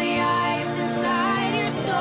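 Background music: the instrumental close of a pop ballad, with sustained piano and string-like tones and a few soft cymbal strokes.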